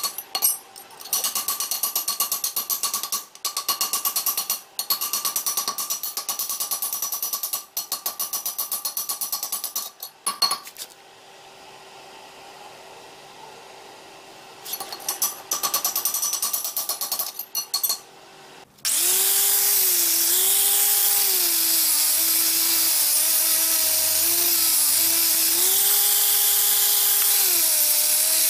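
Power tools working metal. A rapid, even chatter comes in bursts with a brief lull and a faint hum. About two-thirds in, a louder motor-driven tool starts abruptly, its pitch dipping and rising as it is loaded.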